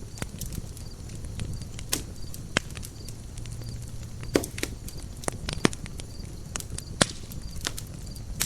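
Campfire burning: wood crackling and popping irregularly over a low, steady rumble, with a handful of sharper, louder pops.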